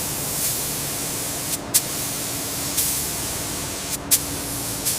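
Paint spray gun hissing steadily as a coat of teal paint goes onto the locomotive, twice broken by brief sharp spurts.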